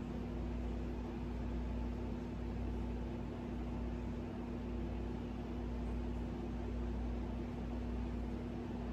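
Steady low hum with one constant tone and a faint even hiss, unchanging throughout; the slow pour of melted soap into the silicone mold makes no distinct sound.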